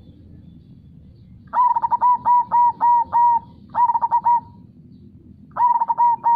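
Zebra dove (perkutut) cooing: three phrases of clear, evenly spaced notes, a run of about six starting around a second and a half in, then two shorter bursts of three, the last cut off at the end. A low steady background rush runs beneath.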